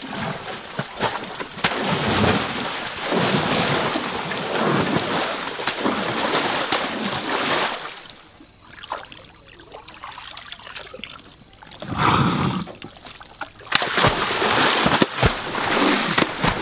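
An Asian elephant wading and splashing in a shallow pond, water sloshing and splashing in uneven surges, with a quieter spell about halfway through and louder splashes near the end.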